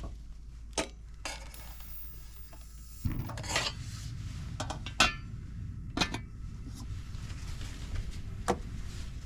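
Metal cookware clinking and knocking: about six sharp separate clinks spread over several seconds, with a low steady rumble coming in about three seconds in.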